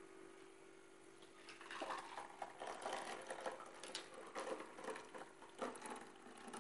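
Milky blended paan shake poured from a steel mixer jar through a metal mesh strainer into a glass bowl: a faint, uneven trickle and spatter that starts about a second and a half in, over a faint steady hum.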